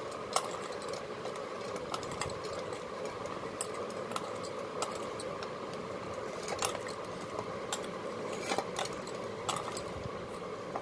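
Glass bangles clinking in scattered sharp clicks while a hand kneads dough in a stainless steel bowl, over a steady background hum.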